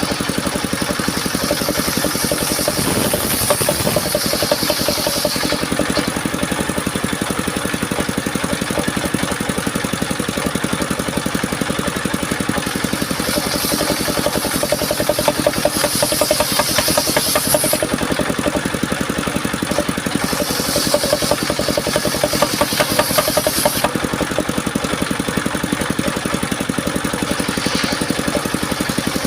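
Engine of a homemade portable circular-saw sawmill running steadily, joined three times, for a few seconds each, by the higher hissing whine of the blade cutting through mahogany.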